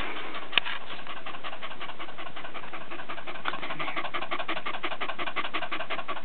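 Bedlington terrier panting rapidly and evenly, winded after hard exercise. A single sharp click comes about half a second in.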